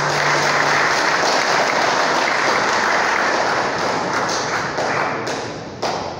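Congregation applauding after a choir piece, a dense patter of clapping that thins out near the end, with a single knock just before it stops.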